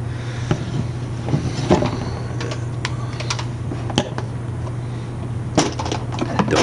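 Scattered small clicks and taps from handling a circuit board and tools on a tabletop, over a steady low hum.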